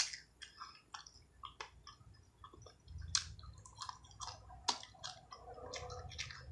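Close-miked chewing of fried fish: a mouth eating, with irregular wet clicks and small crunches and a sharp click right at the start.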